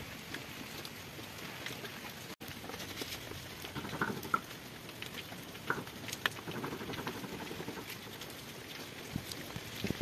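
Muscovy ducks pecking and dabbling at food on a wet banana leaf: a light patter of small, irregular ticks.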